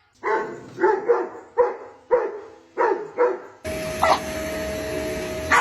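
A dog barking about six times in quick succession. Near the end a steady mechanical whir with a constant hum cuts in, with a couple more short barks over it.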